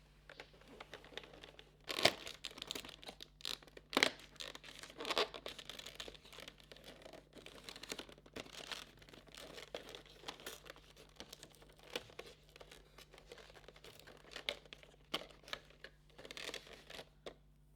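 Packaging of a small make-up item being handled, crinkled and torn open, with irregular crackles and clicks, the sharpest about two and four seconds in.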